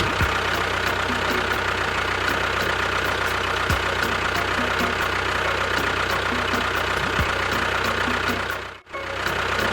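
Engine running steadily at idle with an even, regular ticking knock; the sound cuts out abruptly for a moment near the end and then resumes.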